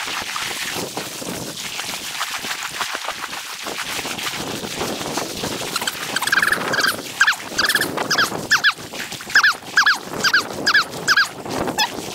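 Wind and water noise, then from about halfway a run of short, high-pitched whines or yelps, about two a second, from a retriever dog swimming out on a retrieve.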